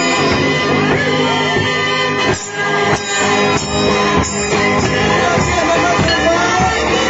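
Christmas carol music with singing and instruments playing.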